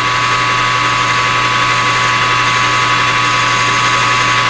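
Metal lathe running steadily, a constant hum and whine from its drive, while a hand-held deburring tool scrapes the edge of a freshly bored metal spacer spinning in the chuck.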